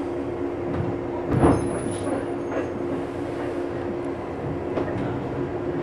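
Interior of a JR East 107 series electric train car standing at a station: a steady low electrical hum from the car's equipment. A single knock comes about a second and a half in.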